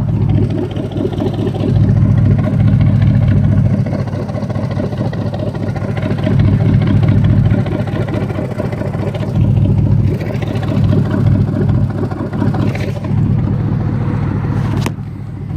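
2002 Chevrolet Silverado pickup's engine running with a loud exhaust: a deep, steady rumble that swells louder and eases off several times.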